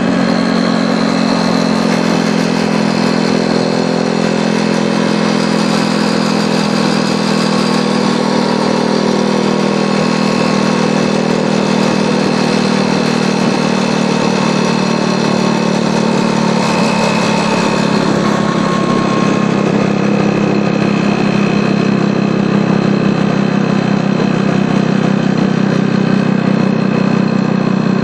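Small 50 cc moped engines, a Toros M50 and a Jawa Mustang, running at a steady cruising pace side by side: an even engine drone with a constant rush of wind noise over it.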